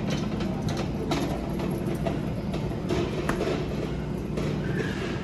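Shopping cart rolling over a store floor, its wheels rattling steadily over a low continuous hum.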